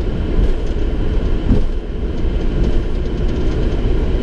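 Boeing 737-700 flight deck while taxiing: a steady low rumble of the idling CFM56 engines and the landing gear rolling over the taxiway.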